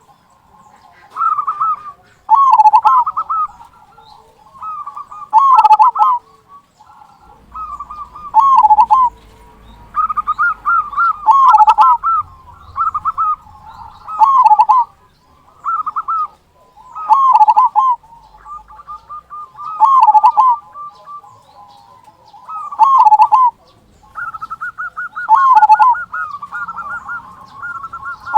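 Zebra dove (perkutut) cooing in repeated song phrases, a loud phrase about every three seconds with softer cooing between. Near the end there is a quick run of repeated notes.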